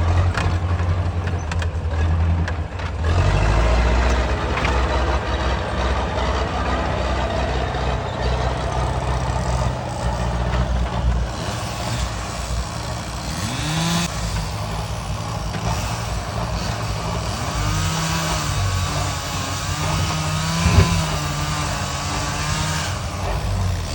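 Heavy diesel engine of logging machinery running and changing pitch under load, with several rising and falling whines over it and a short sharp knock near the end.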